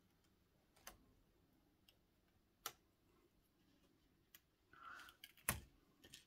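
A handful of faint clicks and light scratches as threads are picked and pulled off the edge of a woven sinamay strip by hand, with a short rustle and the loudest click about five seconds in.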